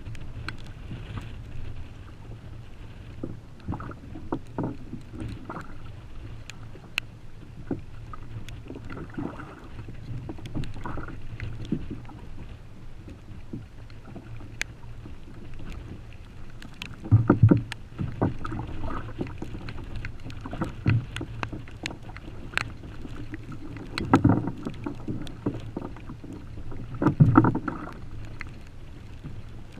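Choppy sea water lapping and slapping against the hull of a Feelfree Lure 13.5 fishing kayak, over a steady low rumble of wind and water. Three heavier slaps stand out in the second half, with small clicks and knocks from handling gear in between.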